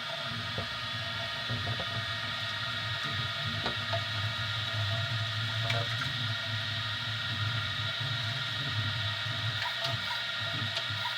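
Easythreed X2 desktop 3D printer running a print: steady high whine from the stepper motors over a low hum that pulses unevenly as the print head moves.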